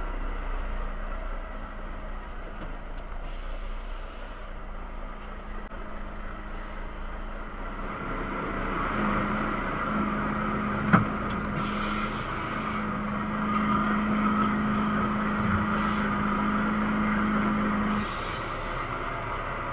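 Heavy truck driving, heard from inside the cab: steady engine and road noise with a low hum that grows stronger in the second half and stops near the end. There are a few short hisses and one sharp click about halfway through.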